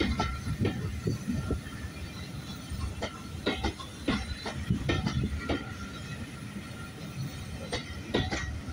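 Passenger coaches of a steam-hauled train rolling past close by, their wheels clicking and clattering over rail joints in uneven groups, with a faint steady wheel squeal in the first second or so. Wind rumbles on the microphone.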